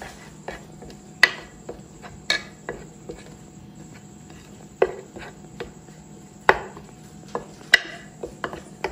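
Steel spoon stirring a thick dry spice masala in a ceramic bowl, clinking and scraping against the bowl in irregular sharp knocks, several of them ringing briefly.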